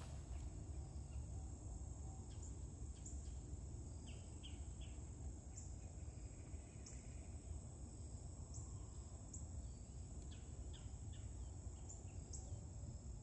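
Meadow ambience: a steady high-pitched insect trill, with scattered short bird chirps and a steady low rumble.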